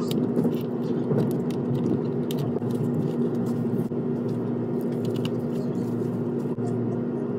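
Steady rumble and constant hum inside a Japanese train carriage, with small clicks and crunches of eating with wooden chopsticks close by.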